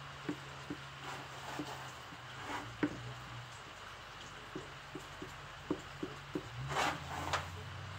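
Scattered light ticks and taps, with two short scraping rasps near the end, as a hot plastic-welding iron works the melted HDPE of a lawnmower fuel tank. A low hum runs underneath.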